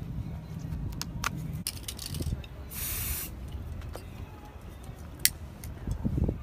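Aerosol spray paint can giving one short hiss of about half a second, halfway through, among a few sharp clicks and taps over a low steady rumble.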